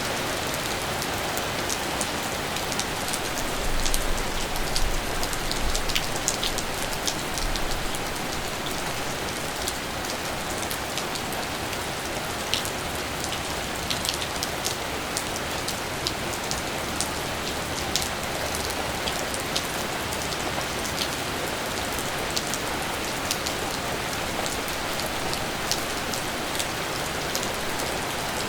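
Steady rain falling, with many individual drops ticking sharply throughout. A brief low rumble rises about four seconds in.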